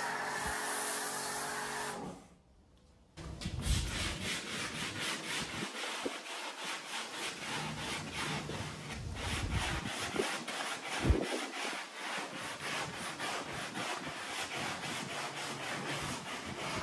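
Pressure washer running with its foam cannon spraying, cutting off about two seconds in. After a second's pause, the foamed underside of the hood is scrubbed by hand in quick back-and-forth strokes, about three or four a second.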